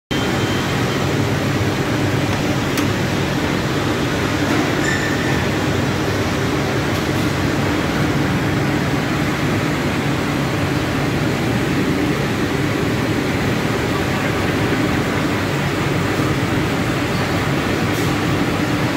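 Electric cheese slicing and dicing machine running: a steady motor hum under a constant whirring noise, with a few faint clicks.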